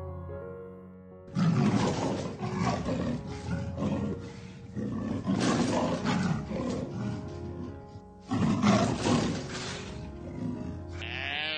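A large animal roaring in three long, harsh calls over steady background music, with a short pitched animal call starting near the end.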